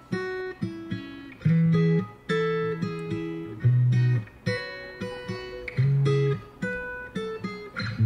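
Background music: acoustic guitar plucked in a repeating pattern, with a low bass note about every two seconds.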